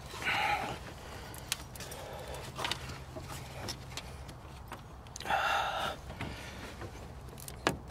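A spring hose clamp being worked along a rubber radiator hose with cable-operated hose clamp pliers: scattered light metal clicks, with two short squeaks, one about half a second in and one around five and a half seconds.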